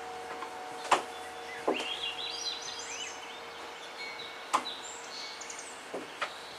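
High heels stepping on wooden deck boards: a handful of sharp, separate taps spread through, while small birds chirp and sing in the background.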